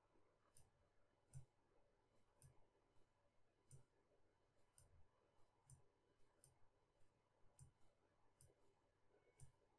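Faint, irregular computer mouse clicks, about one a second, as short brush strokes are drawn.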